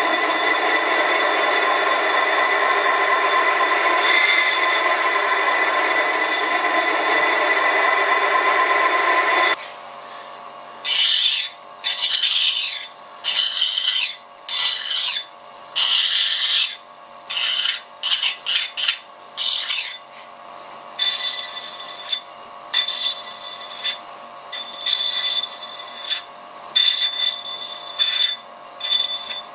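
Lathe turning the cast iron rim of a faceplate, a steady dense cutting noise for about the first nine seconds. Then it stops abruptly and, over the steady whine of the running lathe, abrasive paper is pressed against the spinning rim in short rubbing strokes about once a second.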